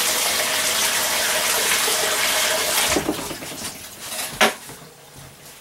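Water running steadily, like a tap, for about three seconds, then stopping, followed by a few light knocks, one sharp one about four and a half seconds in.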